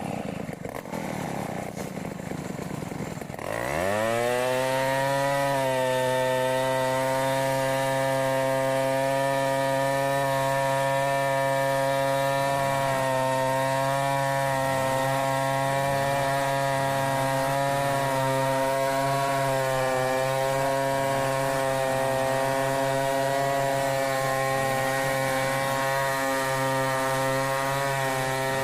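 Stihl 070 two-stroke chainsaw revving up fast about three and a half seconds in, then held at a steady high speed with only slight wobbles for over twenty seconds, ripping a log lengthwise in freehand milling.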